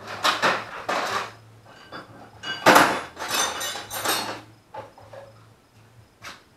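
Metal hand tools clattering and clinking as they are handled, in two bouts of a second or more each, then a few single clinks.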